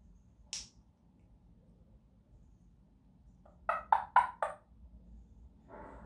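African grey parrot giving four short, quick calls in a row about three and a half seconds in, with a softer call starting near the end. A single sharp click comes about half a second in.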